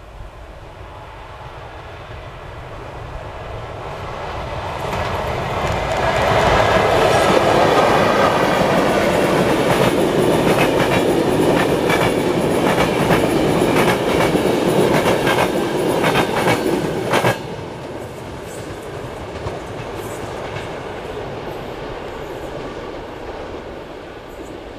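Express passenger train hauled by a Croatian Railways class 1142 electric locomotive approaching and passing at speed: a rumble that grows over several seconds, then loud wheel-on-rail noise with rapid clickety-clack as the coaches go by. The noise drops abruptly about two-thirds of the way through once the train is past, then fades away.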